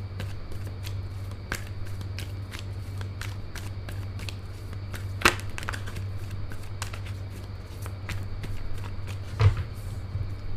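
A deck of tarot cards being shuffled by hand: a quick, uneven run of card clicks and flicks, with a louder slap about halfway through and another near the end. A steady low hum runs underneath.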